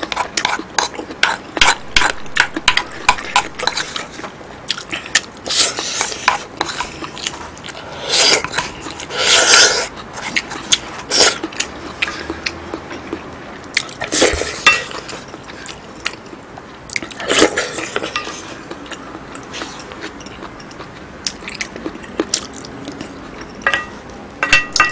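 Close-miked eating of abalone curry with noodles over rice: a wooden spoon scraping and clicking against the bowls, with wet chewing and mouth sounds. There are longer wet bursts about eight to ten seconds in and again around fourteen and seventeen seconds.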